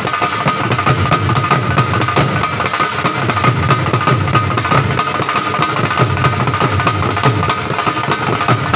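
Two dhols, double-headed barrel drums, beaten with sticks in a fast, dense, unbroken rhythm.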